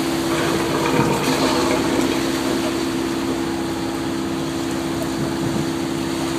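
A tuna fishing boat's engine running steadily under way, a constant low hum, over the rushing of water in the churning wake.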